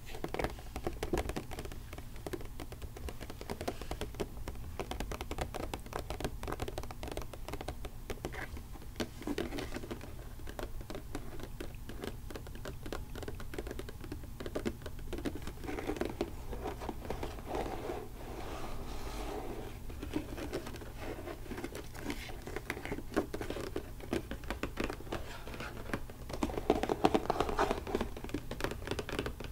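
Long fingernails tapping and scratching on a cardboard Funko Pop box and its clear plastic window: quick, irregular clicks with busier flurries here and there, over a steady low hum of phone-recording noise.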